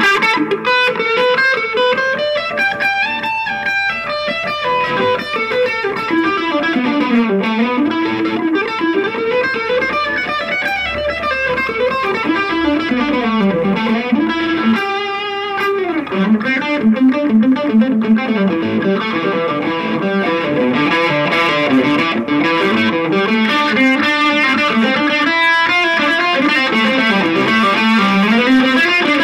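Electric guitar played through a Shredhead distortion pedal into a small, cheap amplifier: distorted lead lines with fast runs of notes sweeping up and down the neck.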